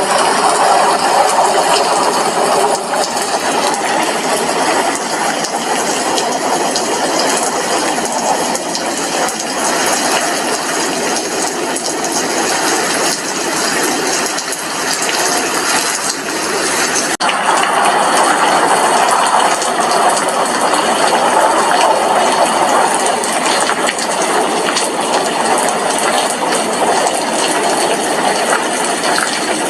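Heavy rain, with dense drops hitting a glass window pane in a steady hiss full of small ticks.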